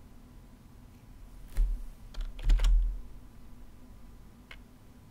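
A few keystrokes on a computer keyboard: sharp clicks with a dull thud, about a second and a half in and again around two and a half seconds in, then a lighter click near the end.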